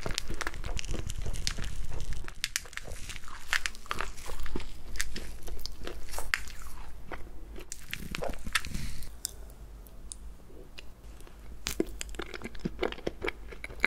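Close-miked crunching as an ice cream cake studded with crunchy candy pearls is eaten and dug into with a metal fork. The crackling is dense for the first nine seconds or so, then turns quieter and sparser.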